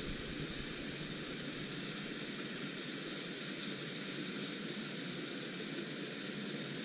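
Steady rushing hiss of water flowing at a dam, even and unbroken throughout.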